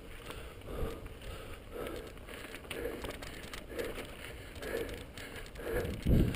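Mountain bike rolling down a rocky, loose-gravel trail: the tyres crunch over stones and the bike rattles and clicks, with a soft sound repeating about once a second. About six seconds in it turns to a louder rumble as the bike hits rougher ground.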